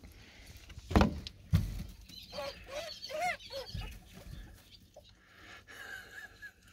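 Two loud knocks about a second in, then a run of short squeaky animal calls that rise and fall in pitch, and a thin wavering whine near the end.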